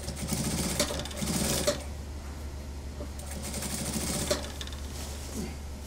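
Industrial sewing machine stitching in two short runs, the first about a second and a half long and the second about a second, with a pause between, as the sleeve is sewn into a suit jacket's armhole.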